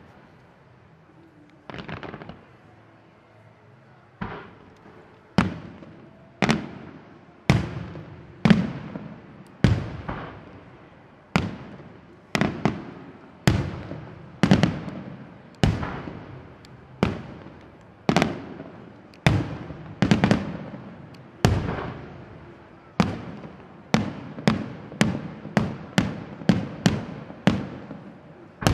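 Aerial firework shells bursting, each a sharp bang with an echoing tail. After two scattered bangs they come about one a second, quickening to two or three a second near the end.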